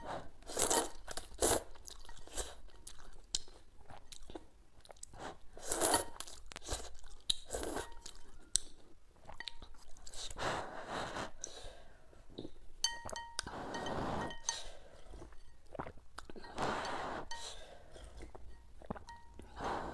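Close-miked eating sounds of noodles in broth: slurping, chewing and wet mouth smacks in quick irregular bursts. There are several longer slurps, about ten seconds in, near the middle, and again toward the end, as broth is sipped from the bowl.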